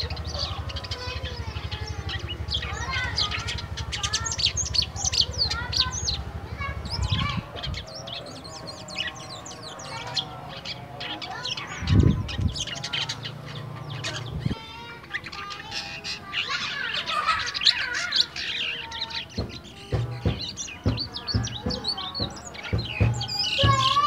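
White-shouldered starling (jalak kapas) singing a long, varied run of quick chirps, whistles and chattering trills, still at the soft, rambling 'ngeriwik' stage of its song. A low hum runs under the first few seconds, and a single thump comes about halfway.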